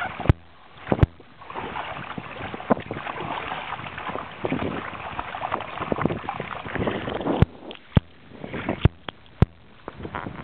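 Water lapping and splashing against the hull of a plastic sit-on-top kayak, uneven and rushing, with several sharp knocks: two about a second in and a cluster in the last few seconds.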